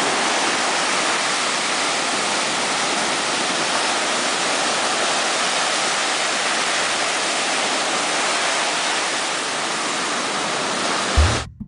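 Steady, even rushing hiss of breaking ocean surf with no swell or lull. It cuts off abruptly near the end, where music with a low drum beat starts.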